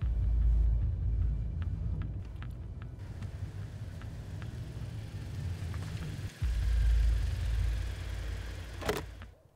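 A car running, heard as a deep, steady rumble of engine and road noise. It breaks off briefly about six seconds in, then comes back, and a brief sharp sound comes near the end.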